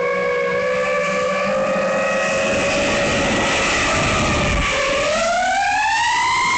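Brushless motors of a SpeedyBee Mario 5 XH FPV quadcopter whining in flight, the pitch steady at first, then climbing over the last second and a half as the throttle is pushed up. Wind rumble runs underneath.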